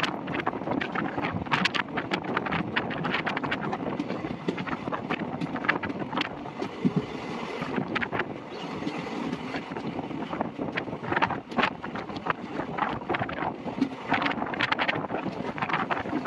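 Passenger train coaches running along the track at speed, with the wheels clattering and clicking on the rails as they go. Wind buffets the microphone.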